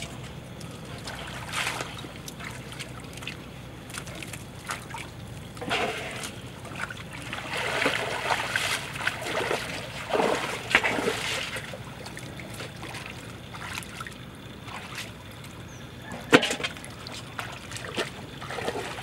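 Water splashing and sloshing in irregular bursts, heaviest through the middle, as fish are handled out of a bamboo trap in shallow water and into a metal basin of water. One sharp knock near the end.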